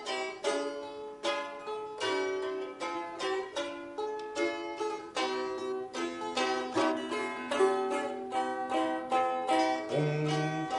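Several balalaikas played together, a dense run of plucked and strummed notes weaving an improvised tune, with a lower sustained note coming in near the end.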